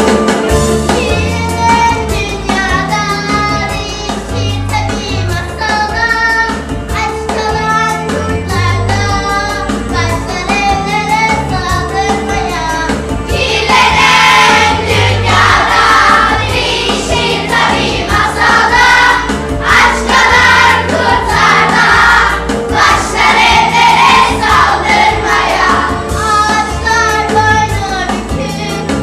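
Music: a song with backing accompaniment, and a group of voices singing along. It gets louder about halfway through, when the singing fills out.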